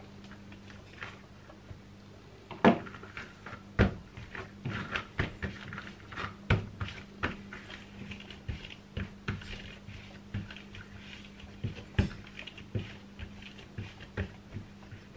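Bread dough being cut with a plastic knife and rounded by hand on a silicone baking mat: irregular soft knocks, taps and sticky squishes, the sharpest about three and four seconds in and again about twelve seconds in. A steady low hum runs underneath.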